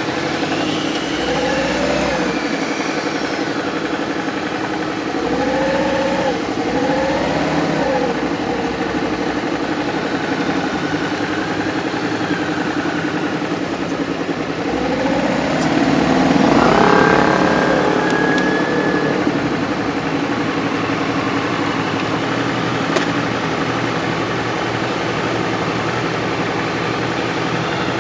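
Motorcycle engines running at low speed and idling, with a few short revs as the bikes move off; the loudest rev climbs in pitch about halfway through.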